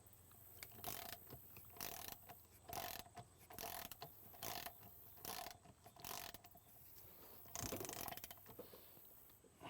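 Socket ratchet wrench clicking in short strokes, about once a second, as a nut is worked on an outboard's flywheel.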